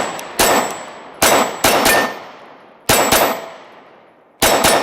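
Glock 26 9mm subcompact pistol firing quick shots, mostly in close pairs, each crack followed by a short echoing decay.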